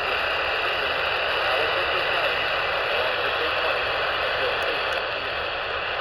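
AM radio tuned to 820 kHz, its speaker giving a steady, loud hiss of static with a weak voice broadcast faintly under it.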